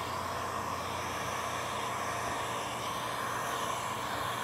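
Heat gun blowing steadily: an even hiss of hot air over a low motor hum, heat-shrinking window tint film to the curve of a car windshield.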